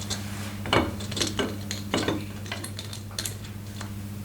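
Light metallic clinks and taps, several spread through, as tools and metal engine parts are handled during motorcycle engine assembly, over a steady low hum.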